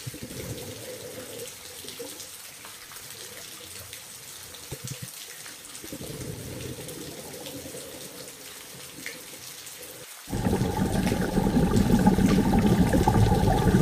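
Running, splashing water: a quiet even rush for most of the stretch, then much louder and fuller from about ten seconds in.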